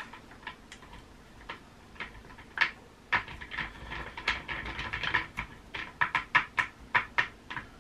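Hard plastic clicking and knocking as a caster wheel's stem is worked and pushed into the socket of an office chair's base. The clicks are sparse at first, then come several a second through most of the second half.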